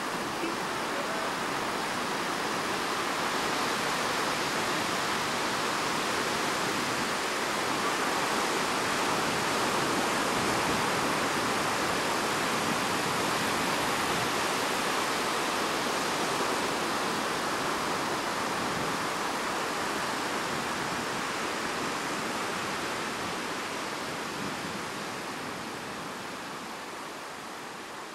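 Ocean surf breaking on a beach, a steady rushing wash of waves that fades out near the end.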